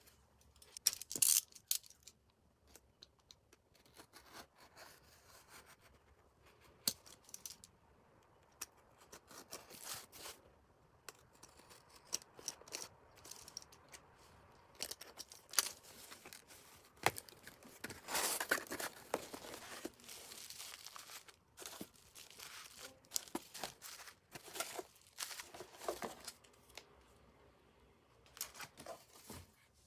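Merchandise parcel being unboxed by hand: packaging torn open and plastic wrapping crinkled, in irregular bursts of rustling and sharp clicks, with a longer stretch of crinkling a little past the middle.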